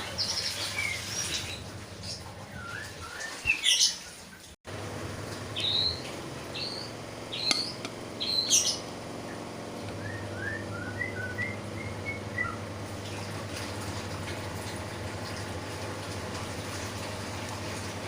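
Bird chirping in short, quick calls through the first half, then a steady low hum.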